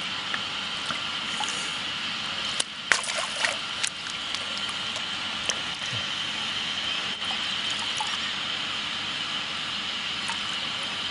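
Water splashing at the surface as hands and a large orange fish move in it, with a quick run of splashes about three seconds in and a few single ones later, over a steady hiss.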